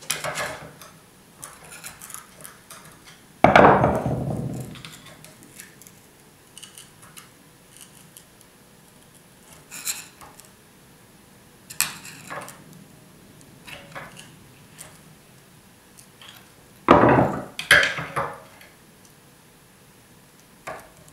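Metal tool levering at a diesel injector nozzle housing held in a steel bench vise: scattered light metallic clicks and scrapes. There is one loud clank that rings on for about a second a few seconds in, and two more loud knocks close together late on.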